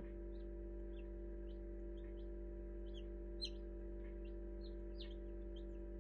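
Newly hatched chicks peeping in an incubator: short, high chirps scattered irregularly, about two a second, with one louder peep about three and a half seconds in. A steady hum runs underneath.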